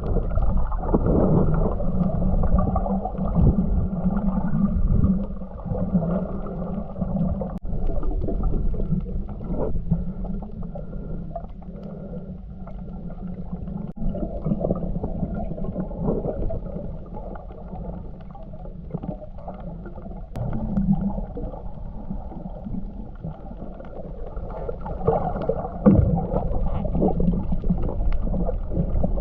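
Muffled underwater sound of water moving and gurgling, as picked up by a camera in a waterproof housing below the surface. It is dull and low, with irregular swells and no clear high sounds.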